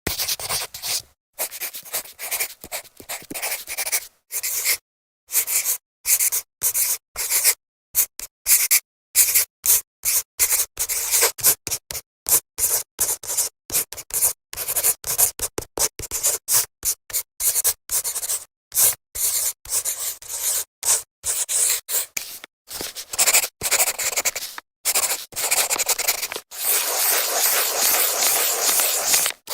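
Marker scratching across a whiteboard in quick strokes, cut by many sudden dead-silent gaps, running on without a break near the end.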